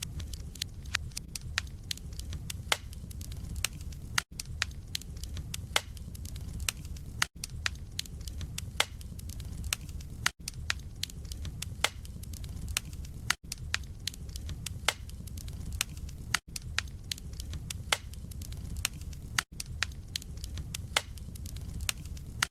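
Wood fire crackling in a fireplace: dense sharp pops and snaps from the burning logs over a steady low rumble of the flames. Brief dropouts to near silence come about every three seconds.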